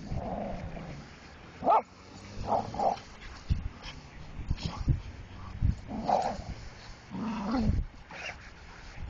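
Two dogs play-fighting, with a handful of short barks and yips scattered through, the sharpest about two seconds in.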